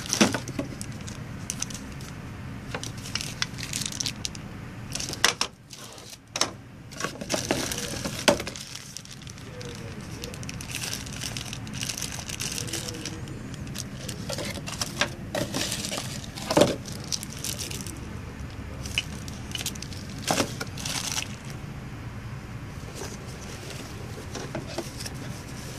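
Cardboard packaging and plastic wrapping being handled while a camera box is unpacked: rustling and crinkling, with scattered sharp taps and clicks of box flaps and contents.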